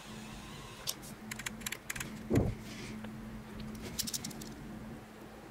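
Light clicking and rattling of small hard objects being handled, in short clusters, with one soft thump about two and a half seconds in, over a steady low hum.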